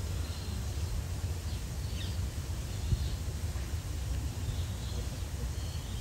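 Outdoor ambience: a steady low rumble with a few faint, short, high bird chirps and one brief knock about three seconds in.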